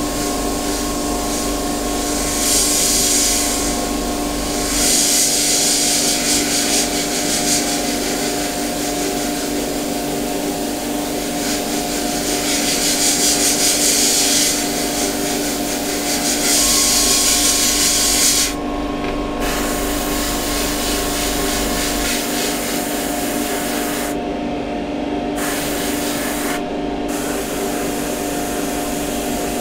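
Airbrush hissing as it sprays paint in long bursts, cutting out briefly a few times near the end when the trigger is let go, over a steady low hum.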